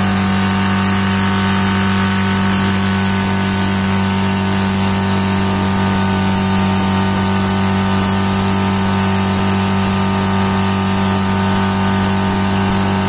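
Motorboat engine running at a constant speed while the boat cruises, with a steady rush of wind and water noise.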